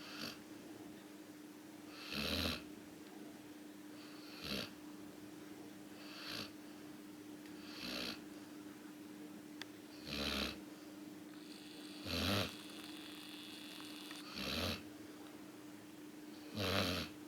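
Sleeping Samoyed dogs snoring, about one breathy snore every two seconds, some louder than others, over a steady low hum.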